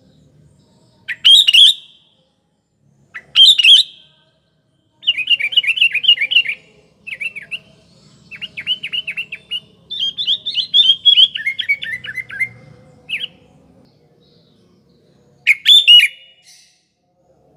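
Sooty-headed bulbul (kutilang) calling and singing: short loud calls about a second in, just before four seconds and near the end, with a long run of rapid chattering notes in between.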